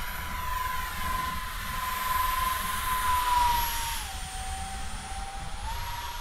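RC electric ducted fan jet flying overhead, its fan whining steadily over a rush of air, louder about three seconds in. The whine steps down in pitch about four seconds in and comes back up near the end.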